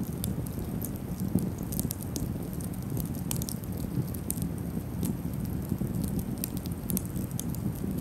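Open wood campfire burning, with frequent small irregular crackles and pops over a low steady rumble.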